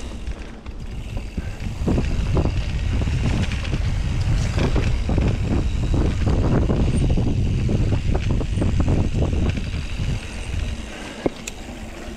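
Mountain bike riding a leaf-covered dirt singletrack: wind rushing over the handlebar camera's microphone, with tyres rumbling over the ground and the bike rattling and knocking over bumps. A single sharp click comes near the end, as the rumble eases.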